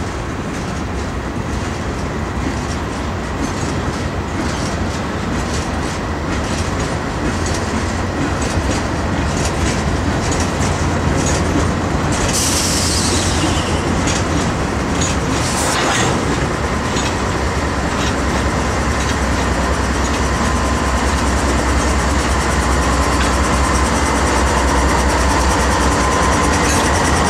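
Freight train of boxcars rolling past, the wheels clicking over the rail joints, with a brief high squeal falling in pitch about halfway through. In the second half the diesel engines of two CSX locomotives at the end of the train come close, and the low engine rumble grows louder.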